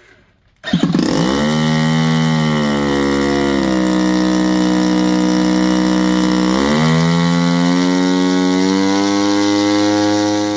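The twin-cylinder gasoline engine of a Mugin 3600 hybrid drone catches about a second in and runs, turning its propeller. Its speed changes twice under the throttle, about a third of the way in and again past the middle, then holds steady.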